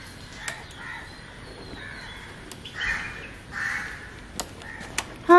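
Crows cawing several times, each call short and harsh, with a few sharp clicks between them.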